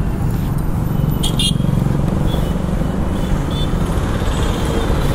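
Road traffic: motor vehicles and motorcycles running, a steady low rumble with no break.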